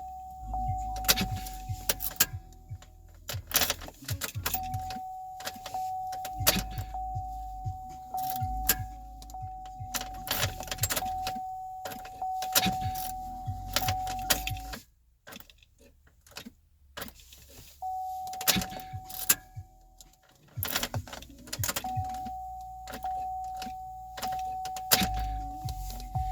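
Car warning chime sounding steadily and cutting out and back in several times as the ignition key of a 2006 Pontiac Solstice is turned back and forth, with keys jangling and clicking. The engine is not heard cranking: the turn of the key brings no start.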